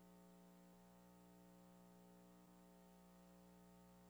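Near silence: a faint steady electrical hum.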